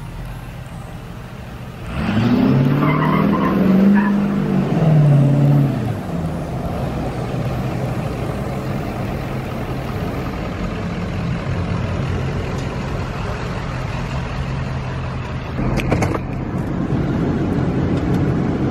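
Lifted pickup truck's engine revving up and down a few times, then running on with a steady drone. A short knock comes near the end.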